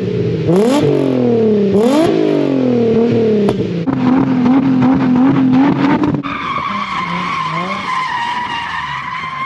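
Car engine through a 3-inch ISR catback exhaust, revving up and down hard several times as the car drifts, then tyres squealing from about six seconds in; the sound cuts off suddenly at the end.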